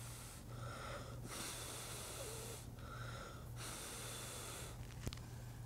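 A person blowing hard on a circuit board in long puffs about every two and a half seconds, drawing breath between them, to dry off cleaning alcohol. A steady low hum runs underneath, and a small click comes near the end.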